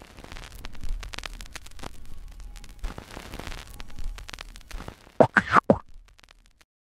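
Sound effects for an animated title card: a scratchy, noisy texture, then a quick cluster of three or four loud pops about five seconds in.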